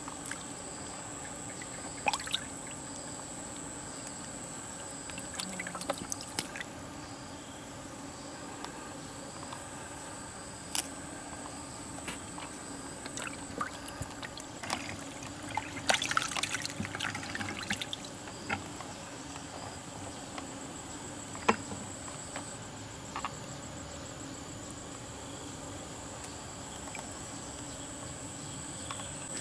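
Water trickling and splashing lightly in a small, shallow dug pool where trapped catfish flick at the surface, with a few sharper splashes every several seconds.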